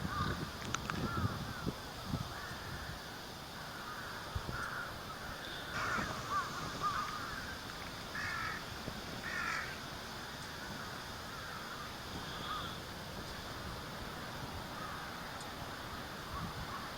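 A flock of crows, mostly rooks, calling: many overlapping caws at a distance, busiest in the middle. Wind gusts rumble on the microphone in the first couple of seconds.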